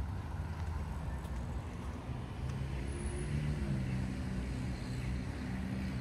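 A motor vehicle's engine running, a low hum that steps up slightly in pitch around the middle, over steady street rumble.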